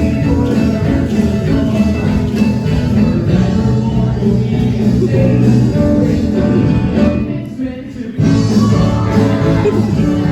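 Music with singing, loud and continuous, dropping away briefly a little past halfway before starting up again.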